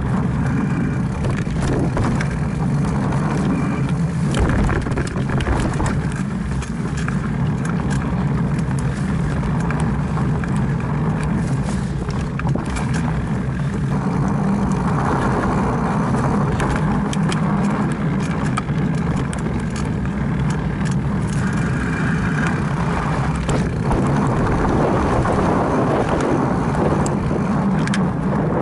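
Mountain bike ridden along a dirt trail: a steady rushing rumble of wind and tyre noise on the bike-mounted camera's microphone, broken by frequent clicks and rattles as the bike goes over bumps.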